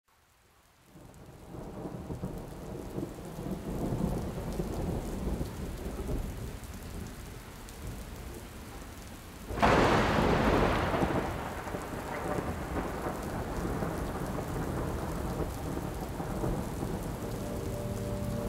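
Thunderstorm ambience: a low rumble of thunder fades in over steady rain. About halfway through, a sudden loud thunderclap rolls away over a few seconds. Near the end, sustained musical tones begin to come in under the rain.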